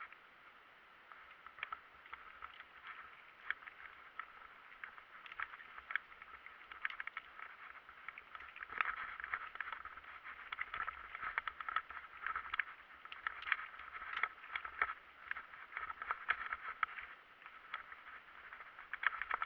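Bicycle ride over rough ground: a steady rolling noise with many irregular rattling clicks, busier in the second half.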